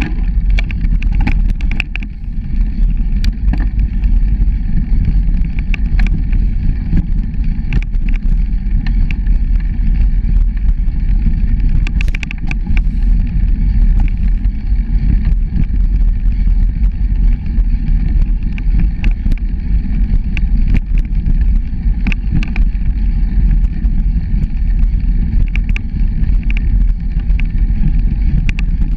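Bicycle ridden along a dirt forest trail: a steady low rumble from wind and vibration on the microphone, with frequent clicks and rattles as the bike goes over bumps.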